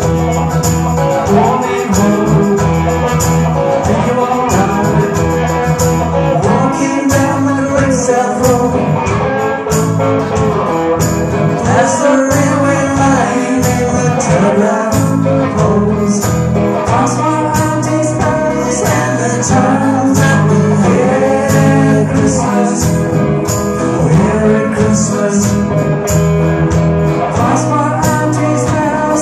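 Live rock band playing a song: guitars, electric bass and a drum kit, with a lead vocal sung over them.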